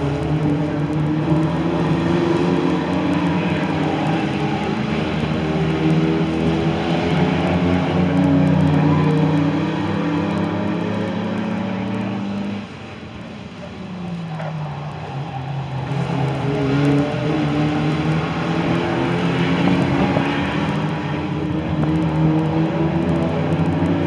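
Saloon stock car engines racing, their notes rising and falling as the cars go round the track. About halfway through the engine noise drops away, with one note falling in pitch, then builds back up a few seconds later.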